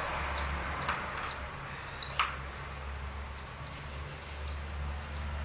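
A young chick peeping repeatedly: short, high, falling peeps about two a second. There is a sharp tap about two seconds in.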